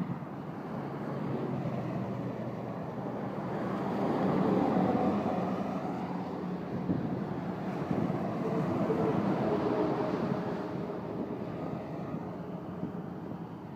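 Vehicle engines and tyres passing, swelling twice, with wind on the microphone.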